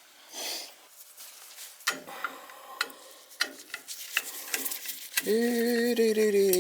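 Metal clinks, taps and scrapes of hand tools and loose metal parts being handled while a boiler's circulator pump is worked on. About five seconds in, a man's voice starts humming a steady, held note.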